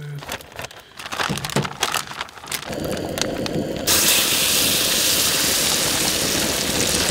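A few light clicks and knocks, then a crackling sizzle that starts about three seconds in, jumps sharply louder a second later and holds steady: turkey nuggets coated in egg and taco seasoning frying in a hot hand-forged pan.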